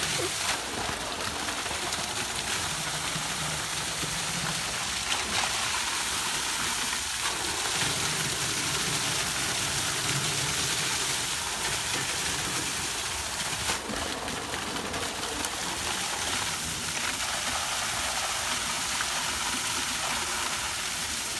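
A heavy stream of water gushing and splashing steadily over a tractor's bodywork and into the muddy puddle beneath it.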